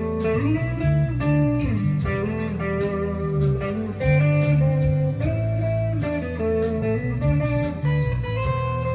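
Jackson Dinky JS22 electric guitar played through a Fender Mustang LT25 amp on its '60s Fuzz' setting: a fuzz-distorted lead line of sustained single notes, several of them bent up and back down in pitch.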